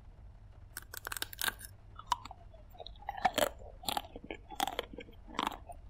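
Biting into a chocolate-coated ice cream bar: the hard chocolate shell cracks with a crisp crunch about a second in, followed by several separate chewing sounds.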